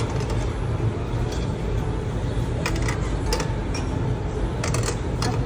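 Metal kebab skewers clinking sharply a few times against the steel rack of a tabletop barbecue grill as they are set down and turned, over a steady restaurant background hum and murmur.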